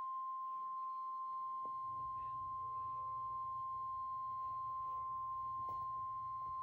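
NOAA Weather Radio's 1050 Hz warning alarm tone: a single steady high beep held without a break, signalling that a warning is about to be read. A faint low hum sits under it from about a second and a half in.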